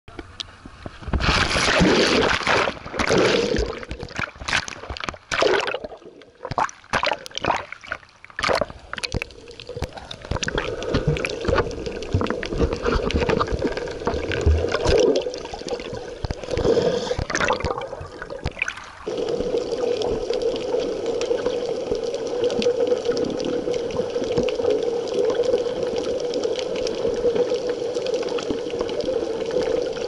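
Seawater splashing and bubbling around the camera as a snorkeler goes into the sea from a boat: loud, irregular splashes at first. From about two-thirds of the way in it settles to a steady, muffled underwater hiss.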